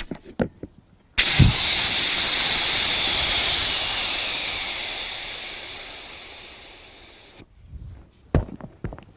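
Air hissing out of the open valve of an inflatable paddle board as the board deflates. The hiss starts suddenly about a second in, loud at first, then weakens steadily and cuts off abruptly some six seconds later. A few short knocks follow near the end.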